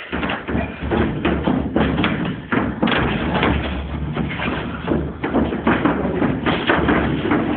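Sparring: a rapid, irregular run of thuds and slaps from gloved strikes landing and feet moving on the gym floor.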